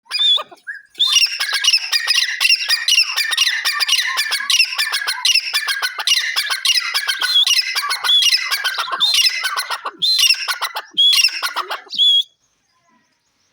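Francolins calling: a brief call at the start, then a dense run of rapid, repeated, high, harsh calls that overlap one another, stopping about a second before the end.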